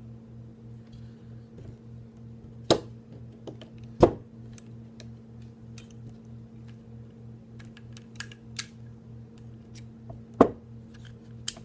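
Sharp clicks and taps of small tools and parts against a pistol frame while its pins are worked out: three louder knocks (about 3, 4 and 10 seconds in) among lighter ticks, over a steady low hum.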